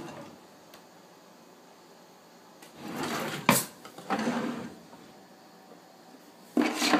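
Kitchen cabinet drawers being slid open and shut: short sliding rushes, the loudest about three seconds in ending in a sharp knock as the drawer reaches its stop, another just after, and more near the end.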